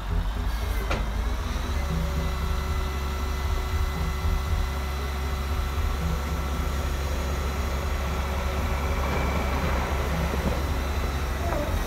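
Radio-controlled model Liebherr wheel loader and Mercedes Arocs dump truck running: a steady low engine-like rumble, with a faint steady whine above it and a single click about a second in.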